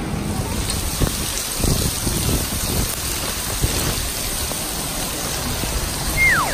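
Steady rain falling, an even hiss with a few dull knocks. Near the end a whistle-like tone sweeps down in pitch.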